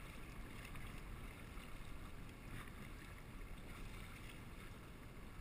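A kayak being paddled through choppy water: the paddle blade dipping and splashing softly, with a low steady rumble of wind on the microphone.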